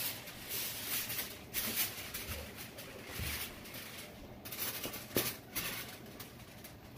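Irregular rustling and light clatter as food is served from foil trays into a plastic container with metal tongs.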